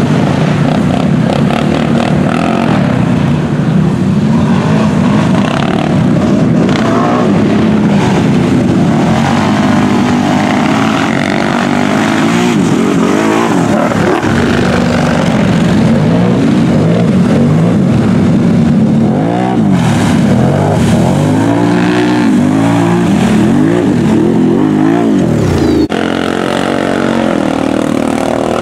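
ATV engine revving hard over and over while the quad churns through a mud pit, its pitch swinging up and down. Near the end the sound changes abruptly to another ATV's engine pulling through the mud.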